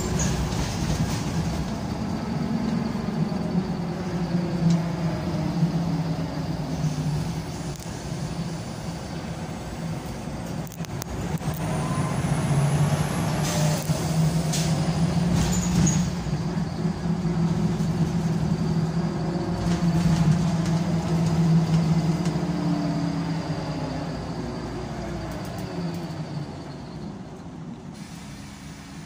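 Scania L94UB Wright Solar single-deck bus heard from inside the saloon: its nine-litre five-cylinder diesel engine pulls through a series of gear changes, the engine note repeatedly dropping and climbing again. There is a short hiss of air about halfway through, and the engine eases off and quietens near the end.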